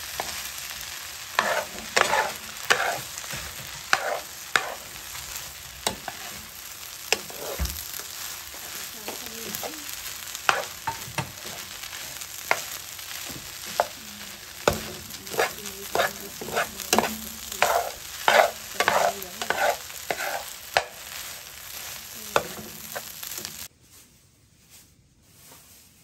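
Seafood fried rice sizzling in a frying pan while a metal spatula tosses and scrapes it, with many sharp clicks against the pan. The sizzle cuts off suddenly near the end.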